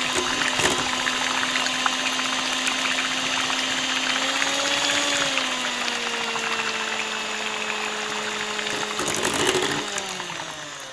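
Bosch electric hand mixer whirring as its twin beaters whip runny cake batter in a ceramic bowl. It runs steadily, its motor pitch shifting slightly about halfway, then winds down near the end as it is switched off.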